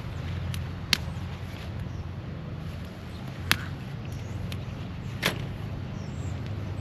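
A steady low machine hum runs throughout, with three sharp clicks or snaps about a second, three and a half seconds, and five seconds in.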